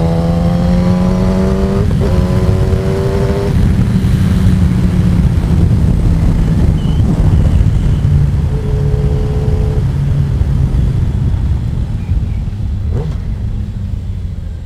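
Kawasaki ZX-10R's inline-four engine accelerating in gear, its pitch rising, with a short drop at an upshift about two seconds in. After about three and a half seconds the throttle closes, and heavy wind buffeting the onboard microphone takes over as the bike slows.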